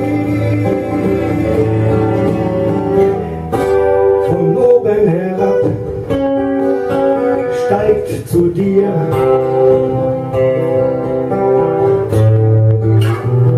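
Acoustic guitar playing an instrumental passage of the song, chords plucked and strummed and left ringing.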